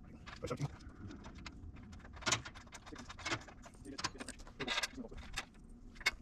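Irregular clinks and clatters of metal tools and hardware being handled, a couple of them louder knocks.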